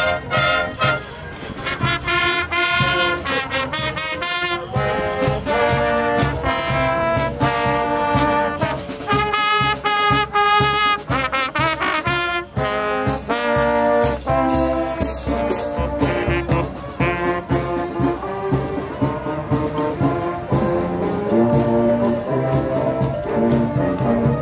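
Marching brass band playing a tune, with trumpets and other brass carrying the melody over a bass drum beating time.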